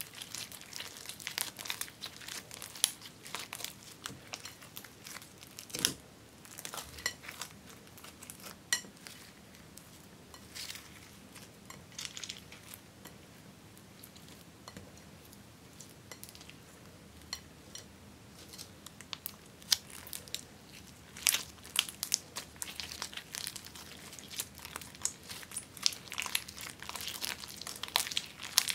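Hands kneading and stretching clear slime loaded with crumbled makeup pieces and powder in a glass bowl, giving dense sticky clicks and crackles. The crackling thins out for a stretch in the middle and grows busier again near the end, with one duller thump about six seconds in.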